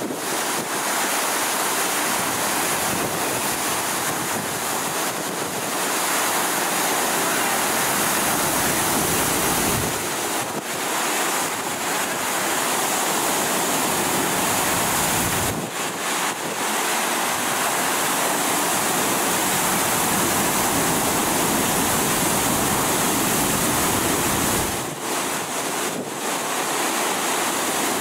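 Water rushing steadily under high pressure from a sheared fire hydrant.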